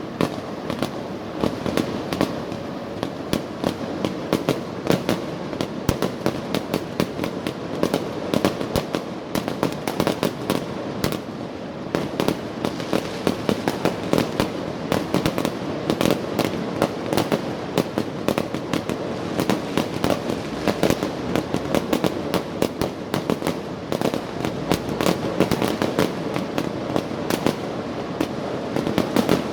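Fireworks and firecrackers going off in a dense, continuous crackle of rapid bangs, many a second, with no let-up.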